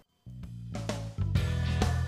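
Background music with plucked notes over sustained low tones, starting after a brief silence at the very start.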